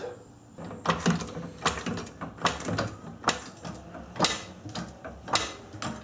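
Hydraulic floor jack being pumped by hand to lift the front of a car, with a click or clank at each handle stroke, about one a second.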